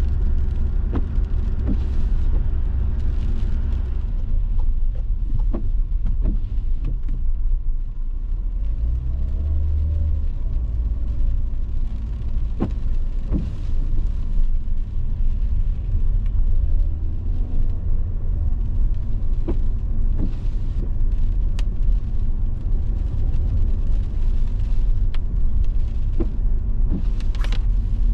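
Car road noise heard from inside the cabin while driving on a wet road: a steady low rumble of tyres and engine, with scattered light ticks.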